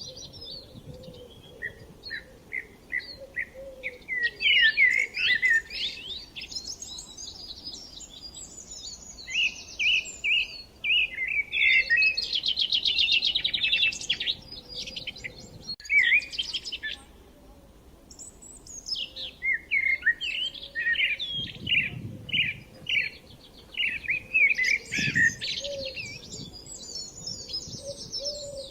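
Songbirds singing: phrases of short chirps and whistles that come and go with brief pauses, including a fast, even trill about halfway through.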